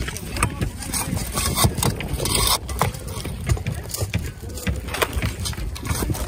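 Roofing tear-off shovel prying and scraping old asphalt shingles off a roof, with irregular scrapes, cracks and knocks as the shingles and nails tear loose.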